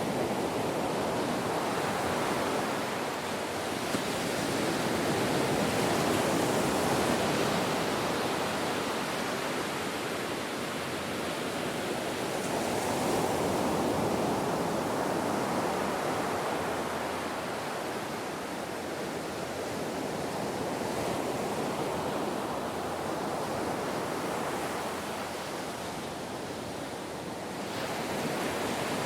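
Waves breaking and washing up a beach: a continuous rushing surf that swells and ebbs slowly over several seconds.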